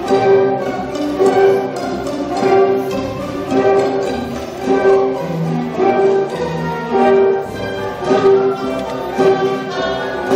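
A high school orchestra playing live, bowed strings to the fore, with a strongly accented note or chord returning about once a second.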